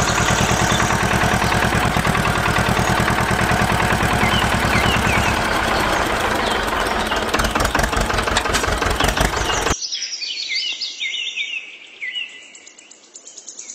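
Tractor engine running with a fast, steady chug, with birds chirping over it. The engine cuts off suddenly about ten seconds in, leaving only the birds chirping.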